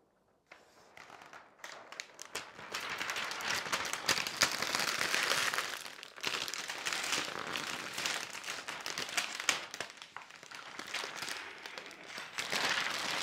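Protective plastic film being peeled off a TV screen: a continuous crackling and crinkling that starts about half a second in and swells and eases as the sheet comes away.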